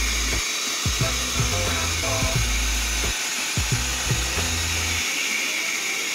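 A high-velocity pet dryer blowing steadily, a constant airy hiss, over background music with a deep bass line and a regular beat.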